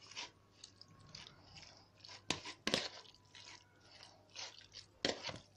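A hand mixing raw chicken pieces in a spice, lemon and vinegar marinade in a plastic bowl: faint, irregular wet squishes and clicks, with a few sharper ones midway and near the end.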